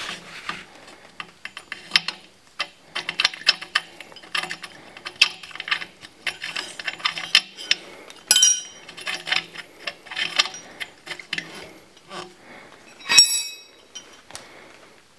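Ratchet wrench clicking in quick runs while turning an oxygen sensor in a turbo Subaru exhaust header, with two louder metal clinks partway through.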